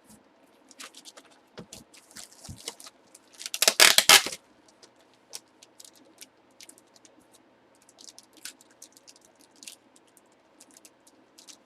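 Hands handling box-break packaging and contents: scattered small clicks, taps and scrapes, with one loud, brief rustle of packaging about four seconds in.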